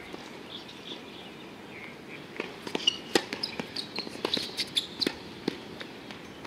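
Tennis rally on an outdoor hard court: a quick run of sharp knocks from racket strikes and ball bounces, starting about two and a half seconds in and stopping a second before the end.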